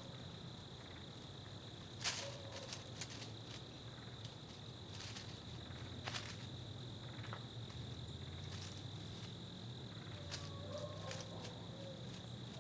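Insects trilling in one steady high note in the woods, with a few sharp clicks and crackles scattered over it, the loudest about two seconds in.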